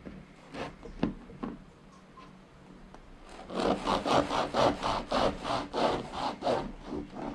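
Knife sawing back and forth through a crusty sourdough loaf: a few separate rasping strokes, then from about halfway a quick, even run of strokes, about four a second, as the blade works through the crust.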